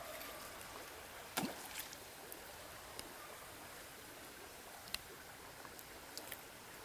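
A short plop about a second and a half in as a baited fishing hook and line drop into a calm river, followed by a few faint clicks over a steady outdoor hiss.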